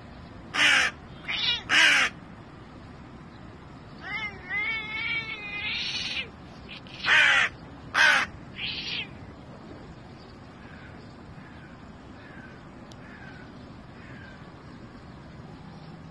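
Harsh, short animal calls in quick groups of two or three. About four seconds in there is a longer call with a wavering pitch. Faint short chirps come later.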